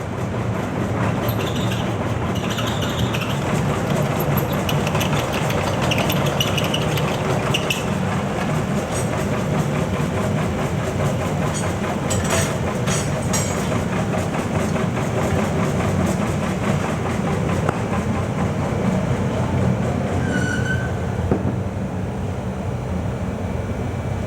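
Steady mechanical clatter of workshop machinery forging and rolling a steel boiler flue extension, with a few sharp metallic knocks about halfway through.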